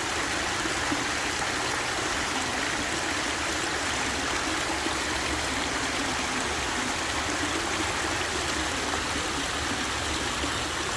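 Backyard pondless waterfall running: a steady rush of water falling over rocks through its pools.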